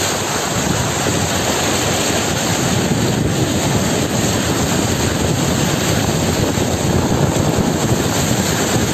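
Loud, steady rushing and splashing of floodwater churned up beside a vehicle driving through a flooded street, mixed with wind buffeting the microphone.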